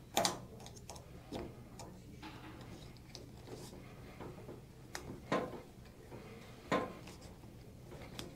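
Light metallic clicks and ticks of a small hand tool working at a metal collar on a shade roller's coiled spring, probing for the collar's hole and seating its screw. A few sharper clicks stand out: one at the start, one about a second in, and two more around five and seven seconds.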